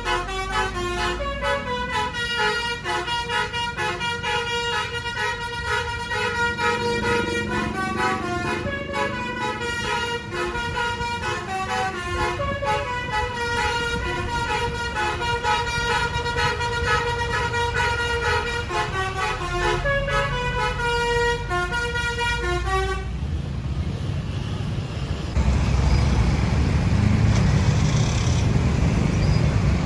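A bus's Basuri telolet musical horn playing a long multi-note tune, several trumpets sounding together and changing notes rapidly, for about twenty-three seconds before cutting off. Afterwards vehicle engine and road noise rises, louder near the end.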